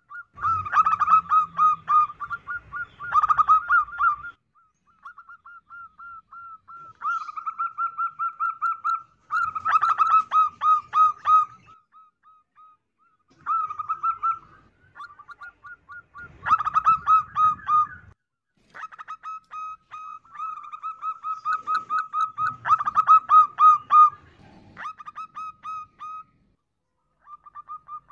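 Zebra dove (perkutut) singing its staccato cooing song: phrases of rapid, repeated high coos lasting a few seconds each, with short pauses between them.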